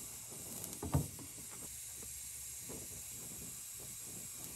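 Brazing torch flame hissing steadily on a copper refrigerant line joint, with the wet rag wrapped around the expansion valve sizzling as the heat reaches it. A brief knock about a second in.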